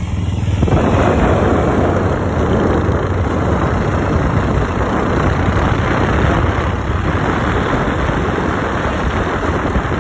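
Motorcycles running along a road at speed: a steady low engine hum under a loud rush of wind and road noise, which grows louder about a second in.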